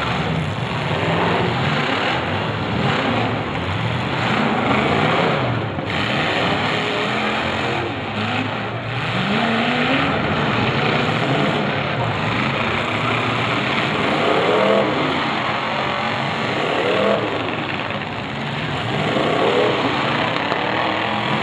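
Several demolition derby cars' engines revving and running hard together, their pitch rising and falling over and over as they maneuver.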